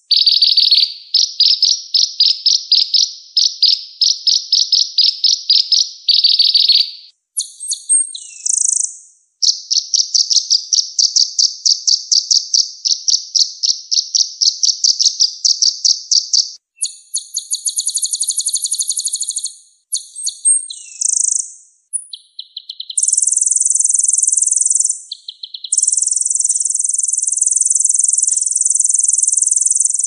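High-pitched, rapid trilled song of a sunbird. Phrases of fast repeated notes last several seconds each, broken by short pauses and a few sharper chirps.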